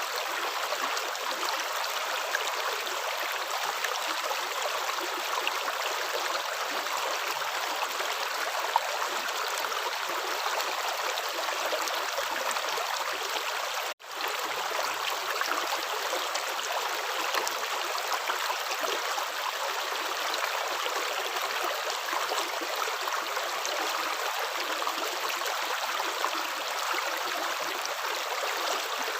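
Running water with a steady, even rush like a flowing stream. It cuts out abruptly about halfway through and fades straight back in.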